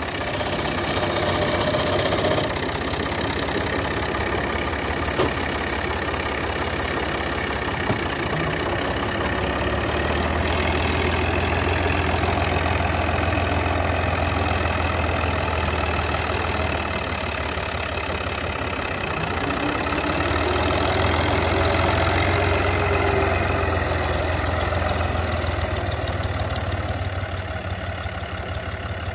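Fiat 480 tractor's three-cylinder diesel engine running steadily under load while pulling a seed drill, growing a little fainter near the end as it moves off.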